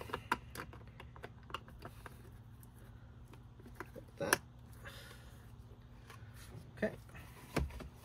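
Small plastic clicks and rattles as wiring harness connectors are handled and pushed into place in a car's centre console, with the sharpest click about four seconds in.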